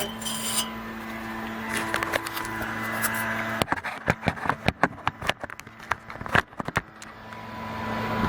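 A quick run of sharp clicks and knocks from handling the parts of a partly disassembled window air conditioner, over a steady low hum. A rising rush of vehicle noise near the end.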